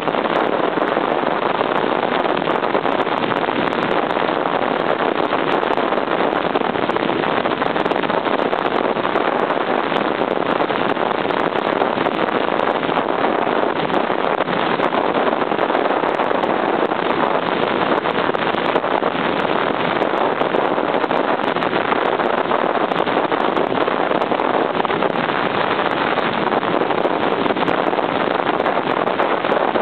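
Motorcycle ride on a 1978 Honda CB750, its air-cooled inline-four engine running at a steady cruise under heavy wind rush on the microphone. The sound is an even, unbroken drone-and-hiss with no gear changes or revving.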